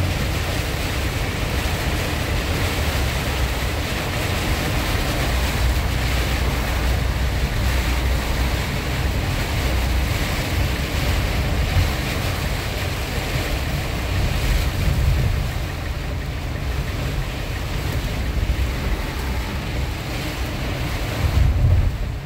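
Heavy rain beating on a moving car in a storm, heard from inside the cabin, mixed with wind buffeting and tyre spray on the wet road: a steady rushing noise over a deep rumble. The rumble swells louder near the end.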